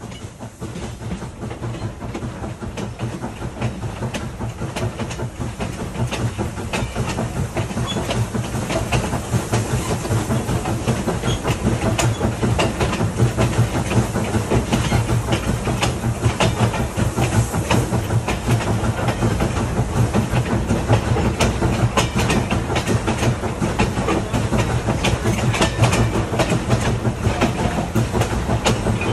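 1937 ALCO steam locomotive No. 60 hauling a train, heard at close range from the car right behind it. The sound builds over the first ten seconds or so as the train gathers speed, then runs on loud, with wheels clattering over rail joints.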